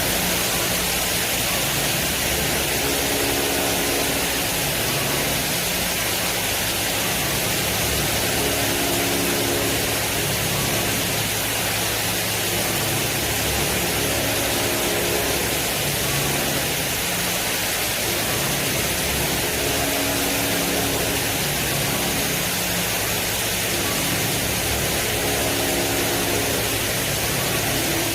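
Doosan Ace-DB130 CNC horizontal boring mill running: a steady mechanical hiss, with a short humming whine that comes back about every six seconds.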